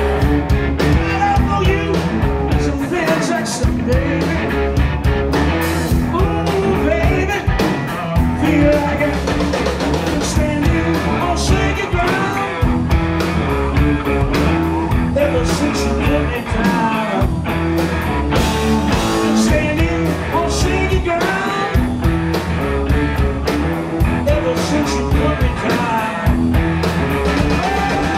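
Live blues-rock band playing: electric guitars, bass and drum kit with a steady beat, and a lead vocal over the top.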